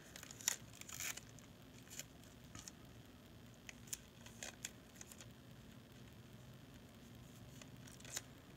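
Faint handling of adhesive tape at a tape dispenser: scattered small clicks and short ripping sounds, the loudest about half a second and one second in.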